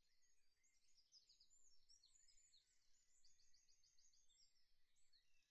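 Near silence, with very faint chirping like small birds, in quick repeated notes throughout.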